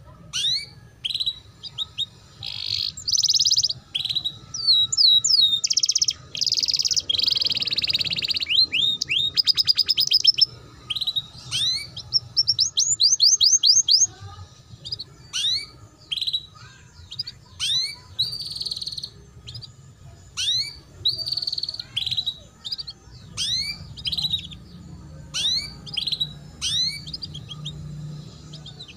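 Domestic canary singing a long, chattering song of quick down-sweeping chirps in rapid runs, with a fast buzzy trill about a third of the way in and short pauses between phrases. It is the twittering ngeriwik style used as a master song for teaching young canaries.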